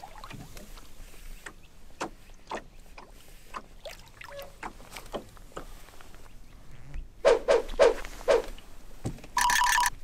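Light taps and knocks in a small boat, with a few loud hollow knocks about seven seconds in, then a short steady tone just before the end.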